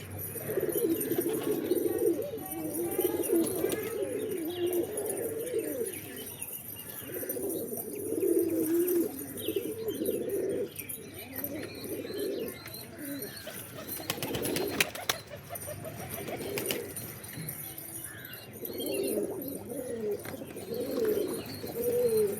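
Several pigeons cooing over one another in low, wavering coos, with a few faint higher chirps. A brief cluster of clicks or flutters comes about two-thirds of the way through.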